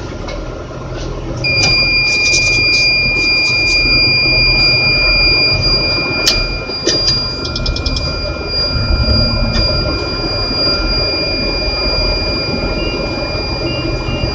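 A crane's wind alarm sounds one continuous high tone from about a second and a half in, signalling winds over 30 mph, over the low rumble of the crane's engine. Near the end a dashed beeping joins it: the load moment indicator warning that the crane is approaching overload capacity.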